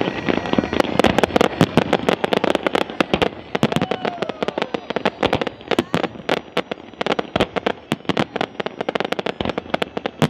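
Fireworks going off in a dense, rapid string of sharp bangs and crackles, a little less intense after the first few seconds.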